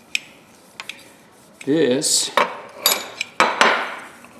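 Metal tools clinking and being handled on a workbench, a few light clicks and then several louder clattering, rubbing handling sounds in the second half.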